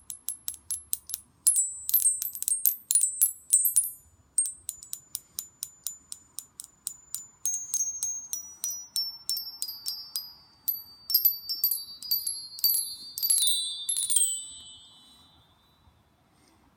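Bar chimes, a row of hanging metal chime bars, struck quickly along their length with a thin stick in a rapid run of taps. The high bars give only short clunks instead of ringing, which is the chimes' fault; lower bars ring on briefly, and the last few strikes ring longest before dying away.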